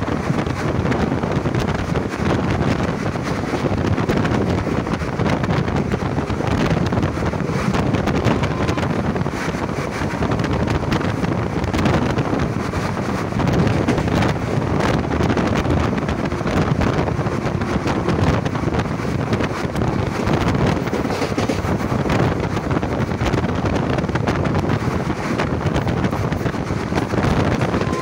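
A passenger train running at speed, its wheels on the rails making a steady rumbling rush, with wind buffeting the microphone.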